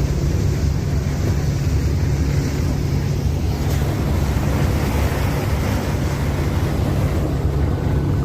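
Steady low rumble of a running engine, with wind noise over it.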